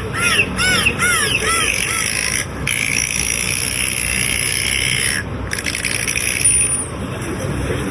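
Animal calls played back: a quick series of rising-and-falling pitched calls, about three a second, for the first couple of seconds, then one long steady high call from about three seconds in that cuts off about five seconds in.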